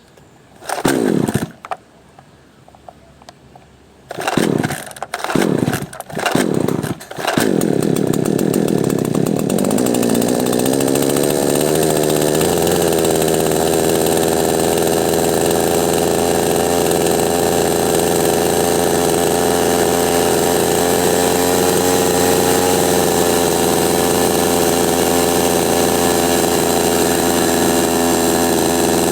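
Two-stroke chainsaw on its first start after new piston rings: four pulls of the starter cord, the engine catching on the fourth about seven seconds in, rising in speed and then running steadily.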